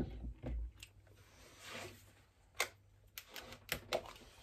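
Light scattered clicks and taps of a small plastic tub of coconut oil being handled and its lid worked open, with a quick run of clicks near the end.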